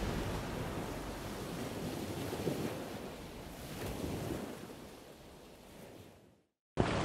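Wind and waves at sea, heard from the deck of a sailing catamaran, with wind rumbling on the microphone. The sound fades gradually and drops to silence about six seconds in.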